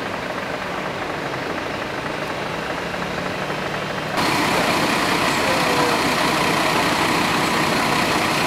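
Heavy vehicle engines idling in a steady low hum. About four seconds in, the sound turns suddenly louder, with a bright hiss added.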